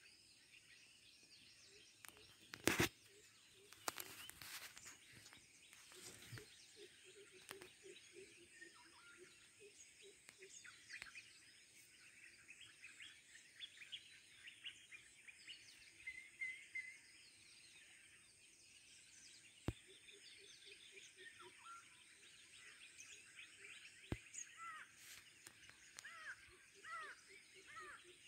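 Faint natural ambience with birds chirping and calling, ending in a run of repeated arching calls. A few sharp knocks cut through, the loudest about three seconds in.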